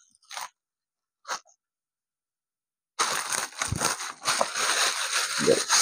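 Plastic courier bag being cut and torn open: two brief faint sounds in the first second and a half, then loud continuous crinkling and rustling of plastic from about three seconds in.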